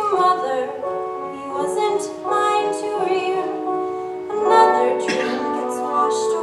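A show tune sung with instrumental accompaniment: a singing voice over sustained backing notes.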